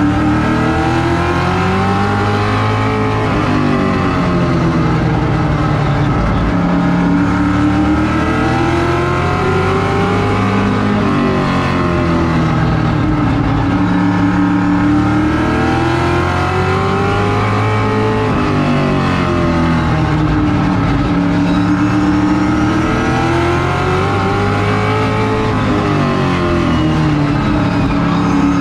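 Vintage modified race car's engine at racing speed, heard from inside the cockpit. Its pitch climbs and falls about every seven seconds, accelerating down each straight and backing off into each turn, lap after lap around a short oval.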